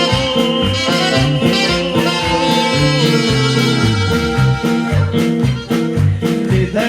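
Worship band music between sung lines of a hymn: guitar over a bass line, with percussion keeping a steady beat.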